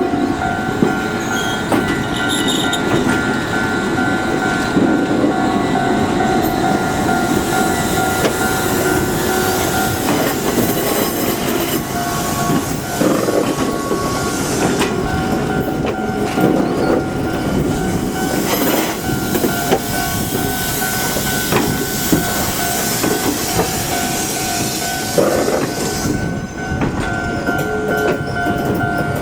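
An Izuhakone Railway 1300-series electric train rolling slowly over a level crossing on a tight depot siding, with steady wheel-and-rail rumble and clatter. A steady ringing tone, the level-crossing alarm, sounds over it and drops out for several seconds partway through.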